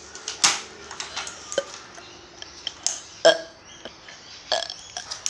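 A child burping on purpose: a few short sounds, the loudest about three seconds in.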